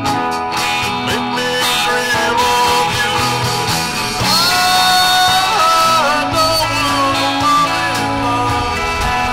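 Rock music with guitar, a long held note sliding up into pitch about four seconds in.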